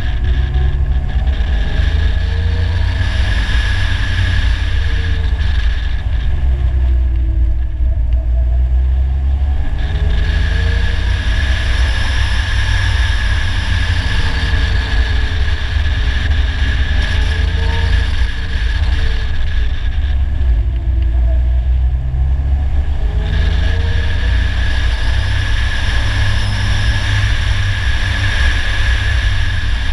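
Polaris Slingshot engine running on the move, its pitch rising and falling several times as it speeds up and eases off, over a heavy low rumble of wind and road noise picked up by a camera on the hood.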